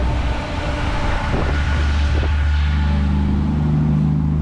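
Road traffic: a vehicle passing with a rush of tyre noise, then a steady low engine hum over a constant deep rumble.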